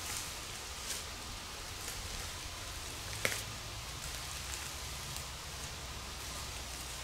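Quiet woodland background: a steady faint hiss with scattered light ticks and rustles, and one sharper click about three seconds in.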